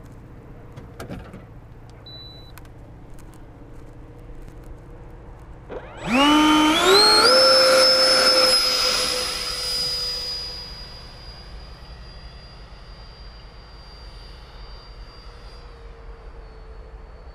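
70 mm ten-blade electric ducted fan (Change Sun CS-10B on a Turnigy 2855 motor) in an RC F-22 jet spooling up about six seconds in, its whine climbing in steps to a loud, high pitch. The whine then fades from about ten seconds as the jet flies off, staying faintly audible. A short beep comes about two seconds in.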